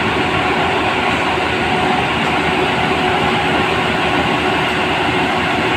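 A machine running steadily and loudly, with a constant hum-like tone over a dense rumble and no change in speed.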